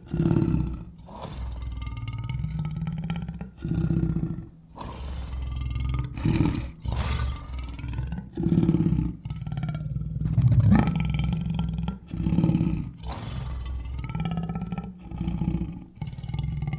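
Lion growling deep from the throat, over and over, with a loud surge every second or two.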